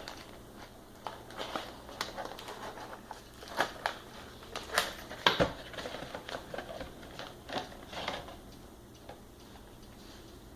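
Irregular clicks, taps and rustles of a horn strobe fire alarm and its packaging being handled during unboxing. The sounds are loudest around the middle, with a sharp knock about five seconds in, and they die down near the end.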